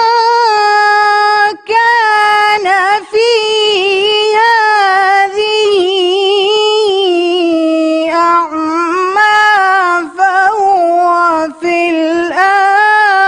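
A young female qari reciting the Quran in melodic tilawah style, holding long ornamented notes with wavering pitch and quick melodic runs, broken by short breaths.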